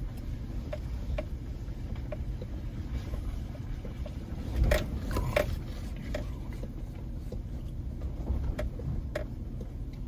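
Vehicle running with a steady low rumble, with a couple of sharp knocks about five seconds in and a few lighter ticks.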